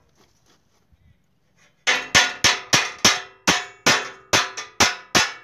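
Hammer blows on steel, starting about two seconds in and going at about three a second, each with a short metallic ring: a blade being knocked into place on a steel farm implement.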